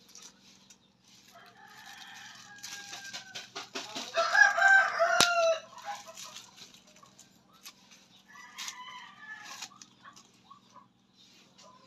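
Rooster crowing, loudest about four to six seconds in, with another shorter crow near nine seconds. A single sharp click about five seconds in.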